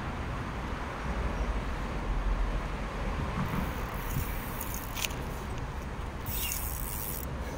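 Steady rumble of road traffic on the highway bridges overhead, mixed with river-bank ambience. Brief high hissing bursts come about halfway through and again near the end.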